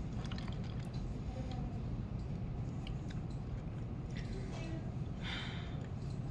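Quiet office room tone: a steady low hum with scattered faint clicks and a brief soft hiss about five seconds in.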